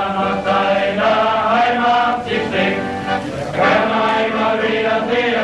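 A group of men singing a song together in chorus, with an accordion accompanying them.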